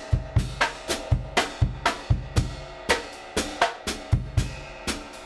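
A recorded acoustic drum kit played with brushes in a basic, jazz-waltz-flavoured beat, with kick and snare hits a few times a second. The drums are made to sound blown out by vinyl distortion and a soft clipper.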